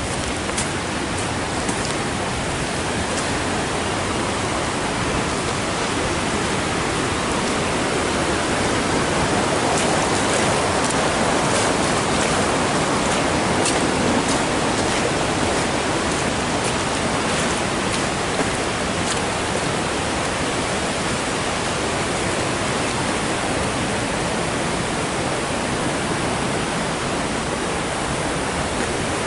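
Steady rush of fast-flowing river water, an even noise with no change in level. A few faint clicks sound over it in the first twenty seconds.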